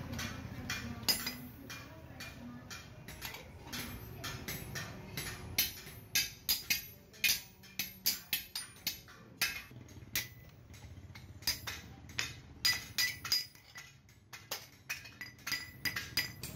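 Hand hammer striking metal on a small anvil: a run of light, quick blows, about two to three a second, each with a short metallic ring, pausing briefly near the end.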